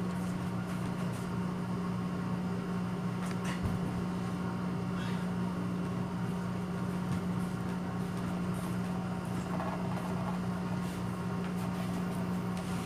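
Steady low machine hum with one constant pitch, and a few faint clicks over it.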